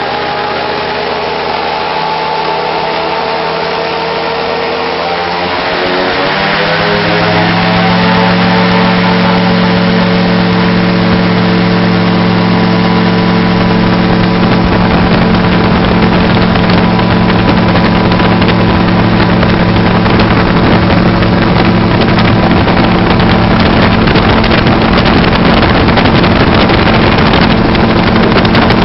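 AutoGyro MTOsport gyrocopter's engine and pusher propeller heard from the open cockpit. A few seconds in the engine note climbs and gets louder as power comes up for the takeoff run, then holds steady at high power with wind rushing past through the roll and lift-off.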